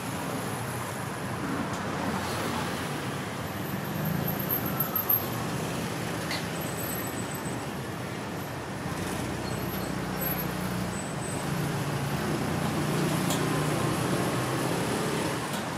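Street traffic noise: a steady rumble of passing vehicles, with a few short clatters about five seconds in.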